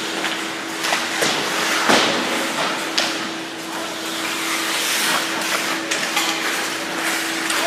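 Ice hockey play: skates scraping on the ice, with several sharp knocks of sticks and puck, the loudest about two and three seconds in, over a steady hum.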